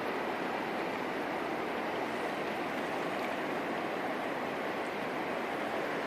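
River water flowing, a steady even rush of noise with no breaks.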